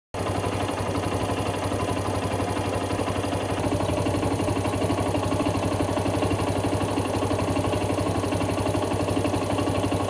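An engine running steadily with a low, even hum and a fast regular pulse.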